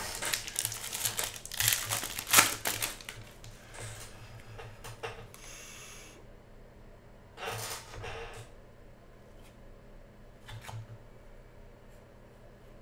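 A foil trading-card pack being torn open and crinkled for the first few seconds. After that comes quieter sliding and flicking of cards as a stack is thumbed through, with a few short rustles.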